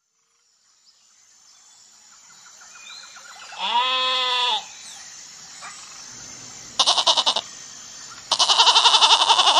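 Lamb bleating over a background that fades in from silence: one smooth bleat about four seconds in, then two quavering, tremulous bleats, the second longer.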